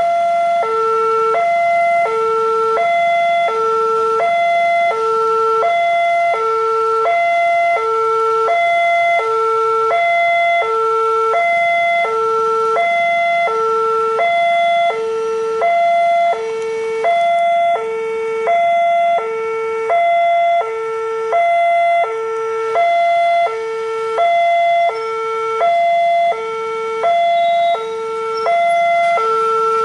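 Railway level-crossing warning alarm: an electronic two-tone signal alternating a lower and a higher tone, about one low-high pair per second. It sounds while the barrier is down, warning that a train is approaching.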